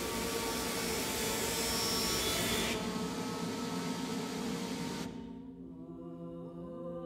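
A loud hissing, rasping noise over steady held low tones, which cuts off abruptly in two steps, about three and then five seconds in. After it, women's voices hold long tones that slowly slide in pitch, singing without accompaniment.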